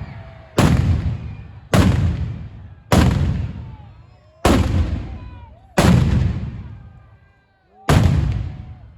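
Firework explosions: six loud bangs at uneven gaps of one to two seconds, each echoing and dying away over about a second.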